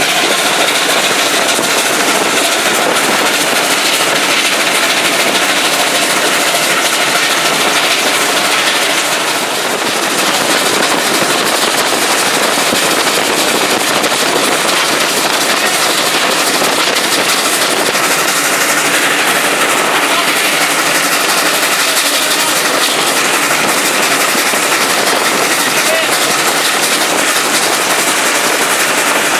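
South African Railways class 19D steam locomotive heard from its cab while running under steam: a loud, dense, unbroken din of the engine working and the wheels on the rails, dipping briefly about ten seconds in.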